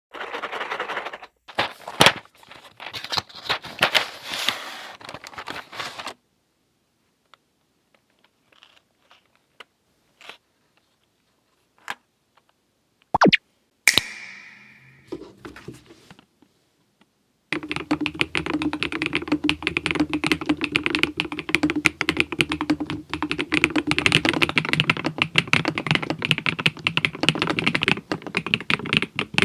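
Typing on an Epomaker Split70 mechanical keyboard with Westeria Linear V2 linear switches and Womier Frosty Ice Cream keycaps. Bursts of key presses for the first six seconds give way to a long stretch of a few scattered single presses. From about two-thirds of the way in, fast continuous typing runs on.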